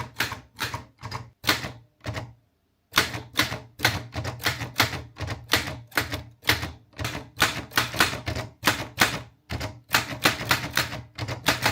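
Olivetti Studio 45 manual typewriter being typed on: a quick, even run of key strikes, about three or four a second, with one short pause about two seconds in.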